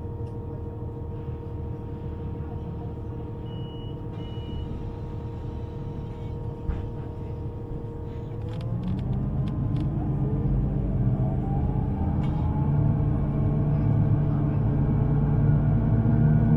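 An electric underground train standing with a steady rumble and hum, then pulling away about halfway through, its traction motors giving a rising whine as the rumble grows louder.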